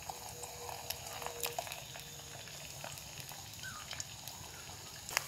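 Eggs frying in a pan: a faint steady sizzle with scattered small crackles and pops.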